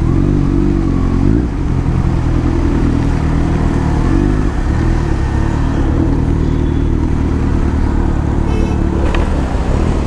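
Motorcycle engine running steadily while riding, with small rises and falls in revs, over wind and rain noise. A brief high-pitched tone comes about a second before the end.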